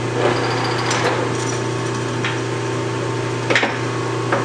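Big lathe's spindle and chuck turned slowly with the headstock gears disengaged, to check the threading tool against the first cut groove. The lead screw and quick-change gear train are still engaged, and there are a few sharp clicks and clunks from the gears and carriage over a steady machine hum.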